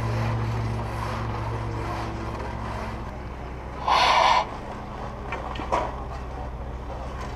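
A steady low engine hum. A brief loud rushing noise breaks in about four seconds in.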